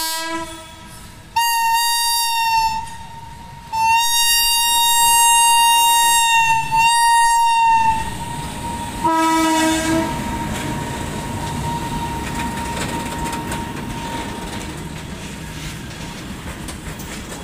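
Indian Railways electric locomotive sounding its horn in a series of blasts, one of them long, as it runs past. This is followed by the steady rumble of covered goods wagons rolling by.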